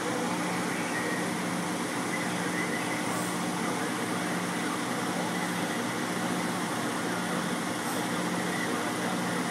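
Truck engine idling: a steady low hum under a constant hiss, heard from inside a truck cab.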